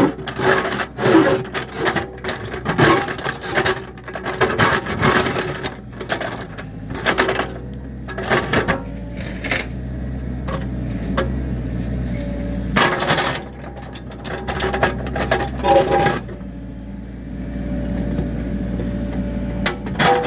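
Mini excavator's engine running steadily while its bucket digs at a big rock, with repeated knocks and scrapes of steel on rock and dirt.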